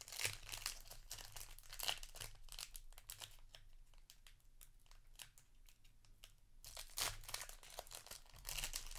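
Foil wrapper of a trading-card booster pack crinkling and tearing as it is opened by hand, in scattered crackles that die down in the middle and come back with a louder burst about seven seconds in.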